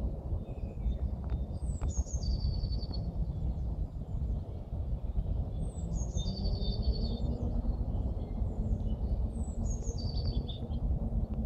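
A songbird singing the same short, high song three times, about every four seconds. Each song opens with falling notes and settles into a quick trill of repeated notes lasting about a second. A steady low background rumble runs underneath.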